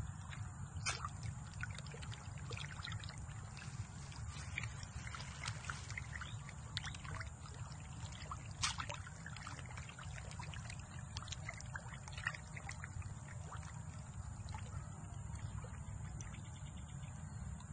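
Scattered small splashes and plops on a pond surface, typical of tilapia feeding at the surface, with a couple of sharper splashes about a second in and about halfway through. A steady low rumble runs underneath.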